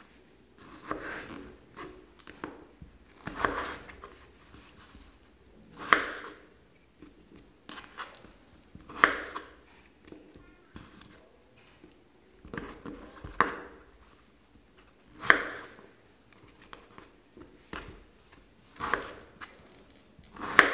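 Kitchen knife slicing raw peeled potatoes on a bamboo cutting board. Each cut ends with the blade knocking on the board, at irregular intervals of about two to three seconds. The sharpest knocks come about six, nine and fifteen seconds in, and again at the very end.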